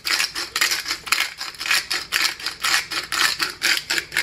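Metal spoon stirring chicken and seasonings in a stainless steel pan, clinking and scraping against the pan about four times a second.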